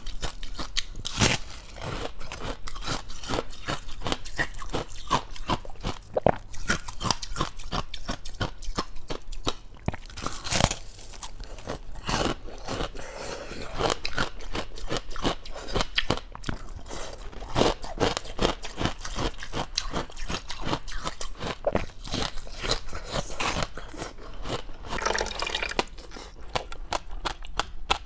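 Close-up crunching and chewing of dry, powdery freezer-frost ice: dense, irregular crackles and crunches as the ice is bitten and chewed.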